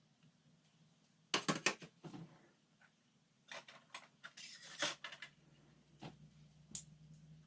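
Kitchen items being handled: sharp clicks and clatters in two quick clusters, one about a second and a half in and a longer one around four to five seconds, then a single click near the end.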